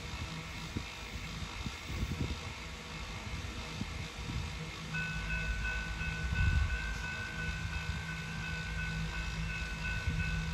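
Rebuilt GE C44ACM diesel-electric locomotives running on the track with a steady low diesel rumble. About halfway through, a thin steady high whine comes in and keeps on over it.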